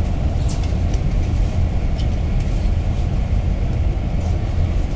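Cabin noise inside a moving GAZ-A64R42 Gazelle Next minibus: a steady low engine and road rumble, with a few faint ticks.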